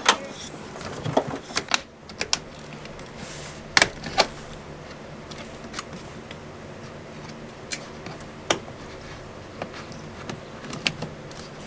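Hand metal snips cutting and clipping the plastic wall thimble of a mini split line set: irregular sharp snips and clicks, a pair of louder ones about four seconds in and single ones later, over a faint steady hum.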